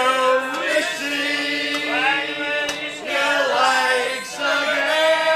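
A group of people singing together in chorus along with a harmonica, with long held notes under the shifting voices.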